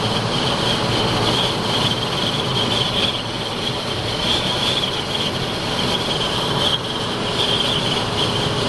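Steady rushing noise of a moving vehicle, with a constant high hiss over it.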